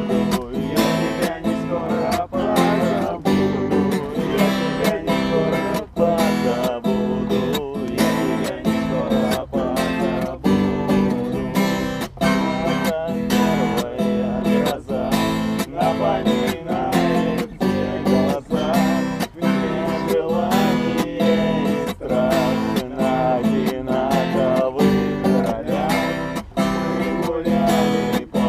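Acoustic guitar strummed in a steady rhythm, about two strokes a second, with no voice: the instrumental introduction to a song.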